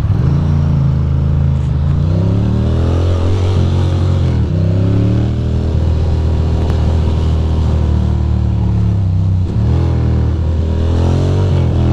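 Ducati Monster's L-twin engine pulling hard, as a motorcycle accelerates through the gears. Its pitch climbs, drops at a gear change about four seconds in, climbs again and drops once more near nine seconds before rising.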